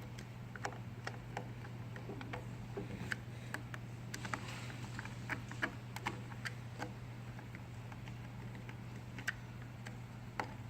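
A screwdriver tightening the screws on a scale junction box cover: irregular light clicks and taps, frequent at first and only a few later, over a steady low hum.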